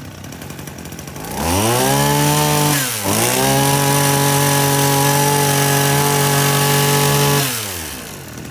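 Small two-stroke brush cutter engine running, revved up hard about a second and a half in, dipping for a moment near three seconds, held at high revs for about four seconds, then let back down to idle near the end.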